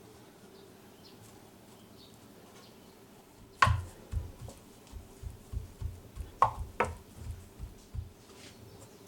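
Kitchen work: one sharp knock about three and a half seconds in, then a run of soft, dull thumps about three a second with two sharper clicks among them, stopping shortly before the end.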